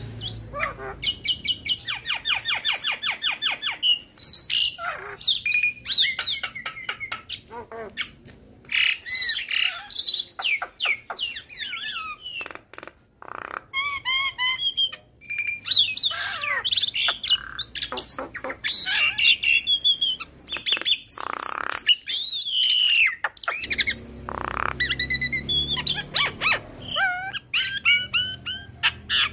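Javan myna singing a long, varied song of chirps, whistled glides and harsh squawks, full of mimicked phrases from other birds, with a fast even run of repeated notes about two seconds in.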